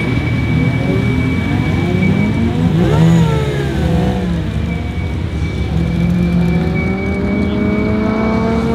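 A tuned Volkswagen Golf Mk3 and an Audi A4 Avant running on a drag strip start line: the engines are revved up and down about three seconds in, then accelerate away with the engine pitch climbing steadily over the last few seconds. A steady high whistle sits over the engine noise.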